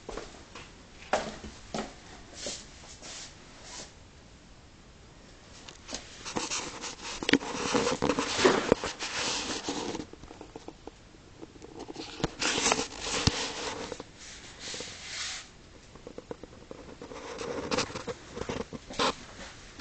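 Irregular rustling and scraping noises in three stretches, with scattered sharp clicks and knocks between them.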